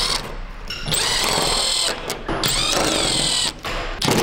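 Cordless drill-driver backing out the screws that hold a Piper Saratoga's wing tip on: two runs of a high motor whine, each about a second long, rising and falling in pitch.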